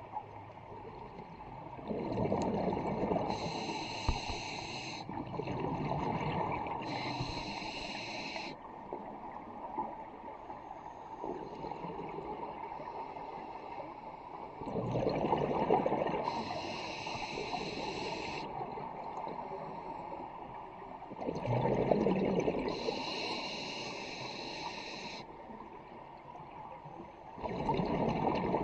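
Scuba diver breathing through a regulator, heard underwater: about five breath cycles, each a hissing, tone-banded draw of air through the regulator and a bubbling rumble of exhaled air.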